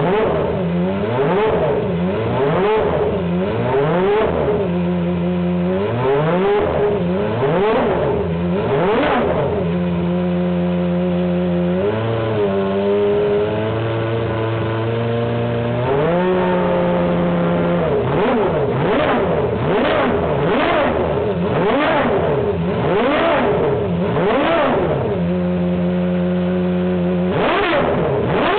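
Peugeot 905 Le Mans prototype's 3.5-litre V10 racing engine running on the stand, blipped again and again so that its pitch rises and falls, with short stretches of steady idle between; in the second half the blips come in quick succession, about one a second. It runs evenly, 'like clockwork'.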